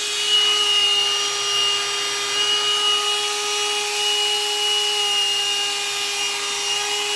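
Hot-air dryer brush running steadily: a rush of blown air with a steady, high motor whine.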